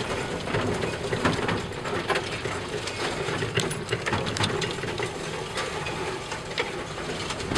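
Small open utility vehicle driving over rough grassy ground: its motor runs steadily while the body and roof rattle and knock over the bumps.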